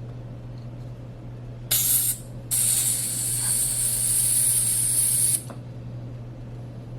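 Butane gas hissing from a refill can into a torch lighter's filler valve: a short spurt, then a longer hiss of about three seconds that stops abruptly.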